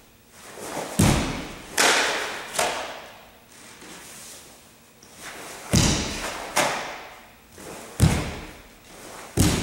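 Sharp thuds and snaps from a karate kata: bare feet stamping on a wooden floor and the cotton gi snapping with each fast technique. There are about seven hits in three quick groups, each ringing briefly in a large hall.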